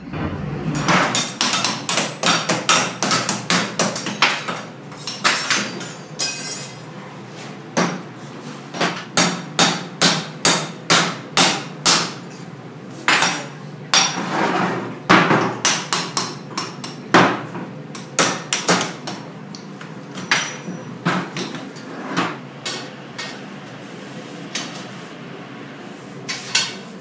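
Repeated sharp metal-on-metal blows from a hammer or steel bar striking steel foundry mould flasks, in quick runs of about two to three strikes a second with short ringing after each, growing sparse near the end.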